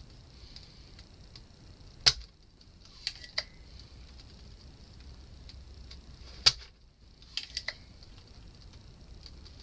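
Spring-loaded desoldering pump (solder sucker) firing twice, about 2 and 6.5 seconds in, each a sharp snap, with lighter clicks after each, while solder is sucked from the amplifier's power-unit circuit board. A faint steady hiss underlies it.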